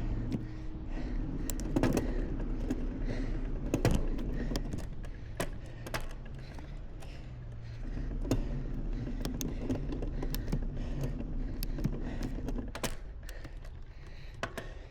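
A bicycle being ridden: a steady low rumble from the tyres on the road, with frequent sharp rattling clicks and knocks from the bike and its mounted camera over bumps.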